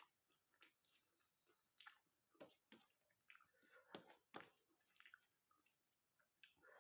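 Faint, close-miked chewing of chicken curry and rice, with irregular wet clicks and smacks of the mouth.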